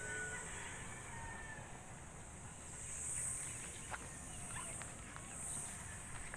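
Faint outdoor ambience: a high, steady insect buzz that swells twice, with a few faint chirps near the start.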